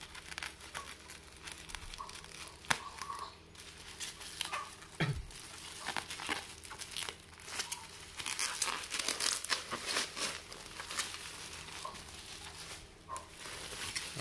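Scissors cutting through a plastic bubble-wrap mailer, then the bubble wrap crinkling and crackling as it is pulled open by hand, with many small sharp clicks.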